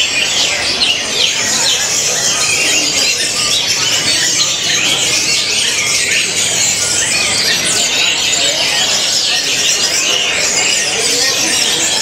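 Dense chorus of many caged songbirds singing and chirping at once, a constant overlapping stream of high, quick notes.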